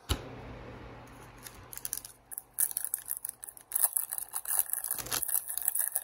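A hockey card pack's wrapper being torn open and crinkled. A sharp tear at the start fades over about a second, then comes a dense run of crackling that grows busier toward the end.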